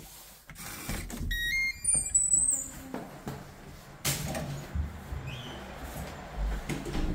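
Electronic digital door lock unlocking from the inside: a short rising melody of beeps, then the lock motor and latch, followed by clunks of the metal door being opened.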